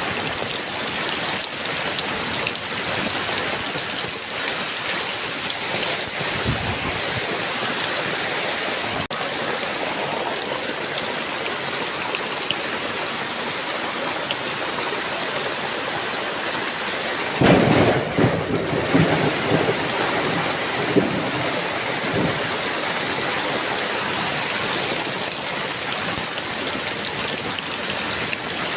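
Heavy rain falling steadily, with a sudden clap of thunder about two-thirds of the way in that rolls on in uneven rumbles for a few seconds.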